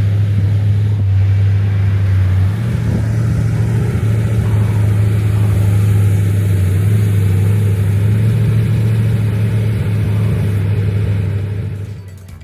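Saleen S7's 7-litre naturally aspirated V8 running loud and steady with a deep rumble, stepping up slightly in pitch a couple of seconds in and fading away near the end.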